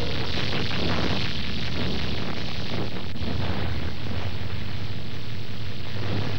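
Erupting lava crater giving a continuous rumbling roar thick with crackles and small pops.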